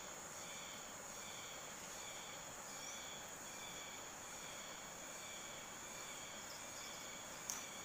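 Insects calling in a faint outdoor background: a steady high-pitched whine with a chirp repeating about once or twice a second. A single sharp click comes near the end.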